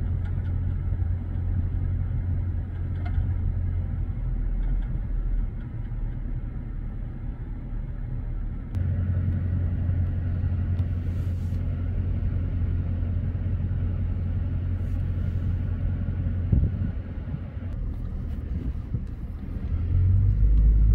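Steady low rumble of a car, with no other distinct sound standing out.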